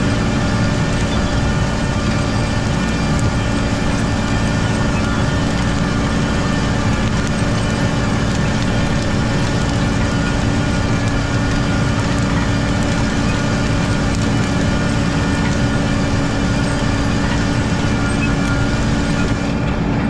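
A planter's row units running through wheat stubble, no-till planting soybeans, heard close up together with the tractor pulling it: a loud, steady mechanical rumble and rattle with a constant hum underneath.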